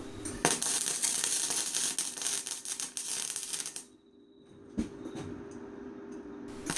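Welder crackling and sizzling as rebar eyes are welded onto a steel pole, in two runs with a short pause about four seconds in.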